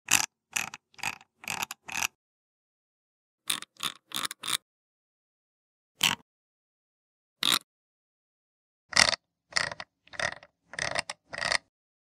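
Computer mouse scroll wheel flicked in short spurts, each a quick burst of ratcheting wheel clicks. The bursts come in quick runs of four to six with pauses between, and there are two single flicks in the middle.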